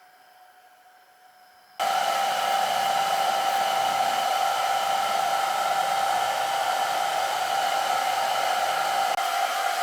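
Homemade hair dryer built from a drink can, its small electric motor and fan switching on suddenly about two seconds in and then running steadily: a rush of blown air over a constant whine.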